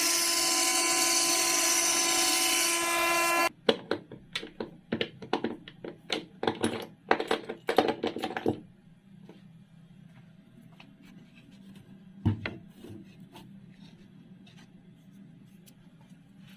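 A high-speed power tool motor runs with a steady whine and cuts off suddenly about three and a half seconds in. A quick run of clicks and knocks follows for about five seconds, like tools or parts being handled. Then it is quiet apart from a faint hum and a single knock.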